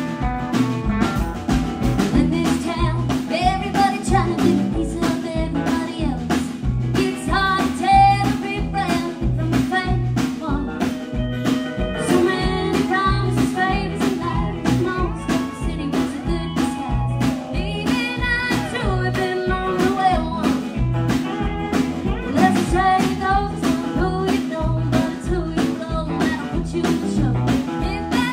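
Live band playing a song: a woman singing lead over acoustic and electric guitars, bass and a drum kit keeping a steady beat.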